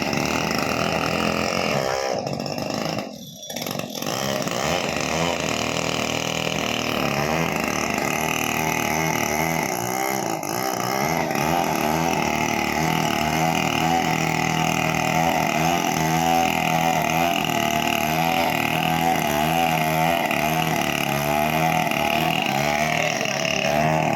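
Chainsaw running steadily as it cuts into a coconut trunk, its engine note wavering, with a brief drop in level about three seconds in.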